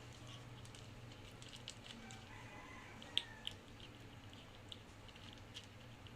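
A small pet eating, faint: scattered soft clicks and wet smacks of chewing, with the sharpest click a little past three seconds in, over a steady low hum.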